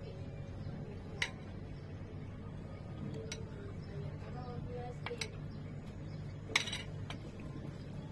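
Kitchen utensils and dishes clinking, with about six short, sharp knocks over a steady low hum; the loudest clink comes about six and a half seconds in.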